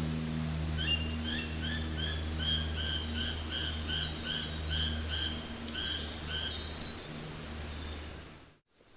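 A songbird calling a rapid run of repeated chirps, about two and a half a second, over a steady low hum. Everything fades out to silence near the end.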